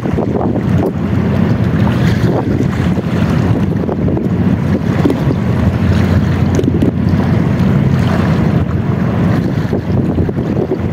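Wind buffeting the microphone, a steady low rumble that flutters unevenly, over sea waves washing against a rocky shore.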